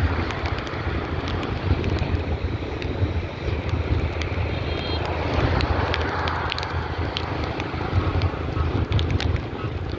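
Wind rushing over the microphone of a moving motorbike, a steady buffeting noise with the motorbike's engine running underneath.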